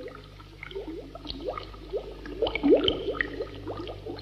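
Bubbling, gurgling slime sound effect: many short rising bloops in an irregular patter, over a low steady hum.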